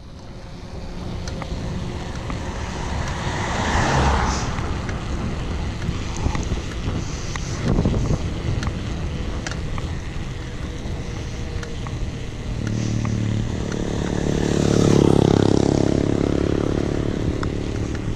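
Wind rushing over the microphone and tyre noise of a mountain bike coasting down a paved road. A motor vehicle goes by about four seconds in, and another engine grows louder and fades again over the last few seconds.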